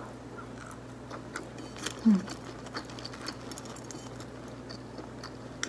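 A person chewing soft bread rolls (homemade pandesal) and pulling them apart with the fingers: small, scattered mouth clicks and soft tearing sounds. A brief low hum is heard about two seconds in.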